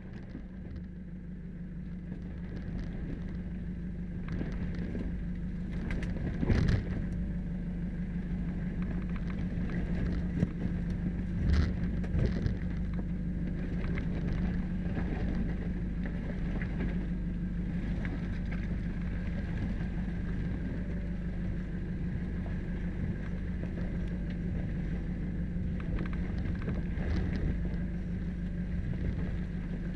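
Off-road 4WD engine running steadily as the vehicle drives over a rocky dirt track, heard from beside the front wheel, with tyres crunching on stones throughout. A few sharp knocks from rocks under the vehicle stand out, once about six seconds in and twice around twelve seconds in.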